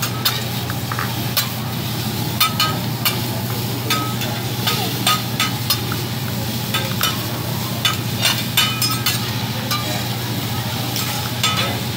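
Metal spatulas clinking and scraping on a hibachi's flat steel griddle, many sharp clacks at uneven intervals, over food sizzling as it fries. A steady low hum runs underneath.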